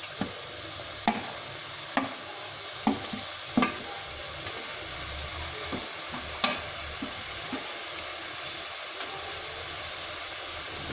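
Chopped leafy greens sizzling faintly and steadily in a clay pot while being tipped in and stirred with a wooden spatula. Five sharp knocks against the pot come about once a second over the first four seconds, followed by softer scattered taps.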